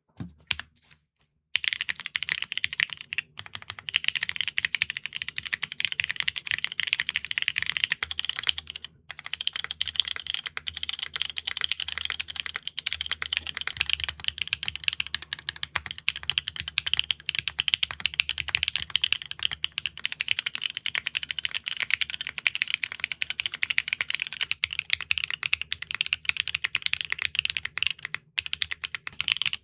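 Continuous fast typing on a custom mechanical keyboard fitted with reverse-dye-sub PBT keycaps: a dense run of crisp key clacks. Short breaks come about 1.5 s in, near 9 s and near the end.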